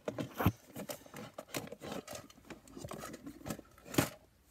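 Close handling noise: a run of small irregular clicks and rustles, with a sharper knock about half a second in and another about four seconds in.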